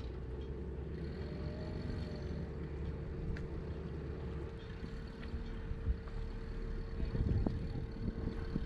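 Boat engine running steadily under way at low speed, a constant hum over a low rumble that grows louder and more uneven near the end.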